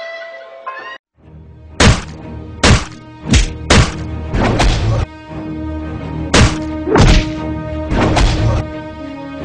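About nine loud, sharp thuds of strikes landing on the body, coming at uneven spacing over background music. The sound cuts out briefly about a second in.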